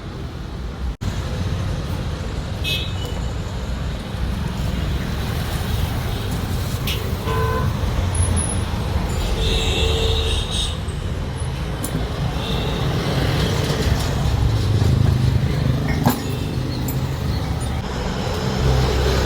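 Road traffic with a steady low rumble of engines, and a couple of short vehicle horn toots near the middle.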